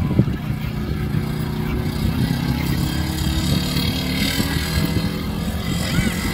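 Engine of a Polaris Ranger utility vehicle running as it pulls away across sand, a steady low drone.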